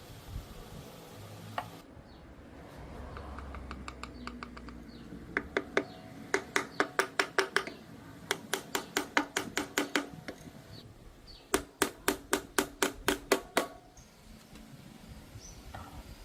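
Runs of sharp, evenly spaced metal-on-metal taps, about four to five a second, each with a short ring. There are three runs, with brief pauses about 8 and 11 seconds in.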